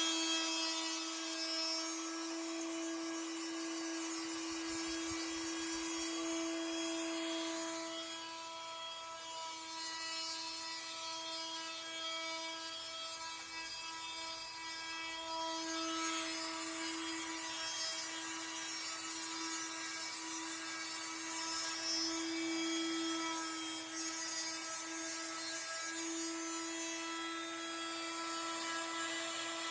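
Modified 3018 tabletop CNC router milling wood: the spindle runs with a steady whine over cutting noise.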